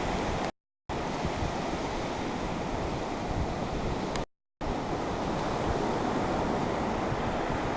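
Ocean surf: a steady rush of waves breaking and washing up the shore. The sound cuts out completely twice for a fraction of a second, once about half a second in and again about four seconds in.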